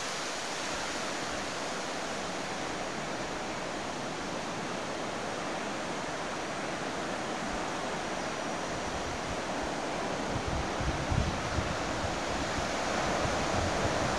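Steady rushing of wind and distant ocean surf breaking below. Wind buffets the microphone with low rumbles in the last few seconds.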